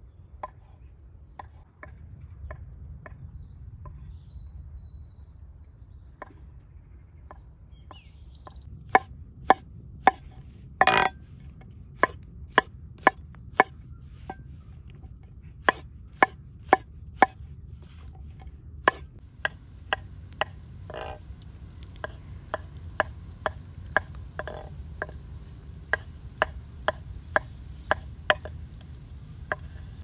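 Cleaver-style kitchen knife slicing button mushrooms on a wooden cutting board: sharp knocks of the blade on the board, a few scattered ones at first, then steady chopping at about two a second. One knock about eleven seconds in is louder and longer. A steady low rumble runs underneath.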